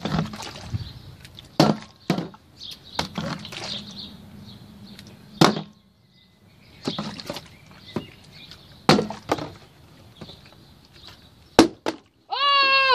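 Plastic drink bottle being flipped and landing on wooden deck boards: a string of separate knocks and clatters, about ten of them with gaps between.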